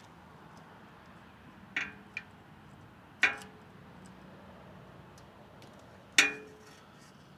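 Metal tools and small metal parts clinking and tapping together during hand work on a motorcycle brake linkage. There are four sharp metallic clicks; the two loudest come about three seconds apart, near the middle and near the end, each with a brief ring.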